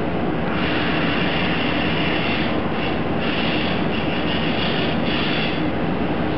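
KHA850H hot-air hemming machine running: a steady hum, with a higher hiss that comes in about half a second in, dips briefly near the middle, and stops about a second before the end.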